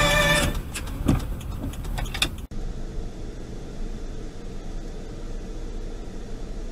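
Music stops about half a second in, then low, steady engine and road noise heard inside a moving car's cabin, with a few light knocks in the first couple of seconds.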